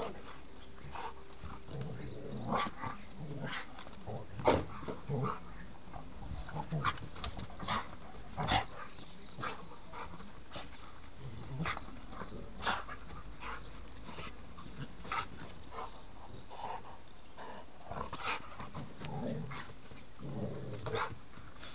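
A dog gives short low growls and snuffles as it mouths and shakes a rope toy, among scattered sharp scuffs and knocks.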